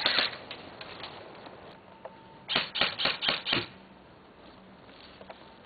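Airsoft gun fired five times in quick succession, about four sharp clacks a second. A shorter clatter comes just before.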